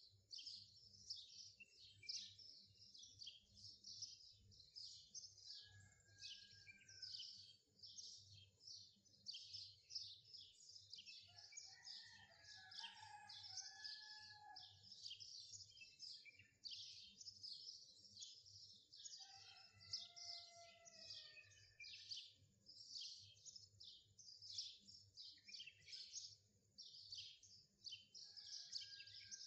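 Faint birdsong: a dense, continuous run of high chirps and twitters, with a few lower whistled, gliding notes around the middle and again about two-thirds of the way through.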